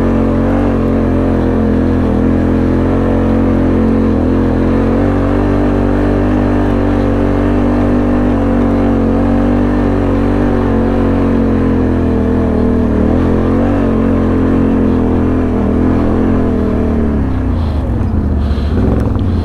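1000 cc V-twin ATV engine running at steady, fairly high revs under load while climbing a dirt trail. About three-quarters of the way through the revs drop, then rise and fall unevenly.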